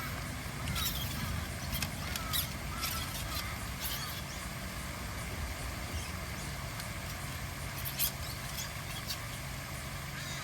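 Steady outdoor background with a constant low rumble, scattered short sharp clicks and a few faint chirps.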